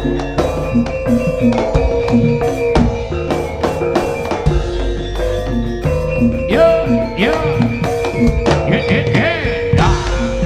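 Live Javanese jaranan senterewe band music: drums beating a fast, even rhythm under tuned percussion. About two-thirds of the way in, a wavering, pitch-bending melody line comes in over the beat.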